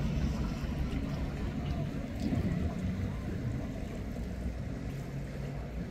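Boat engine running at idle nearby: a steady low rumble.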